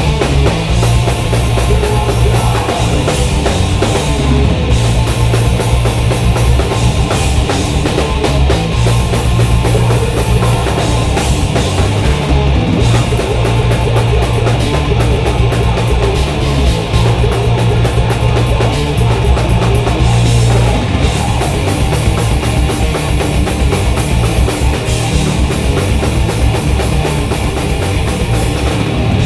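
Thrash metal band playing live and loud: distorted electric guitars and bass over fast, driving drum kit.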